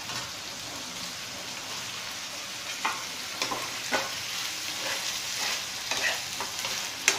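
Chilli sauce with capsicum and onion sizzling steadily in a frying pan over high heat. From about three seconds in, a steel spoon stirs the paneer pieces through it, knocking and scraping against the pan in sharp clicks, with the loudest click near the end.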